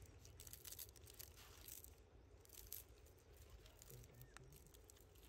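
Faint, scattered crinkling and rustling of dry leaves as a baby macaque handles a leaf, over a low background hum.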